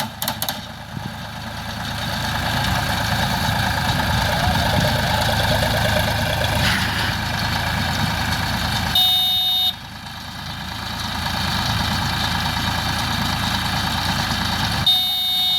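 Tractor engine running steadily while driving a baler, with a short high electronic beep about nine seconds in and another near the end.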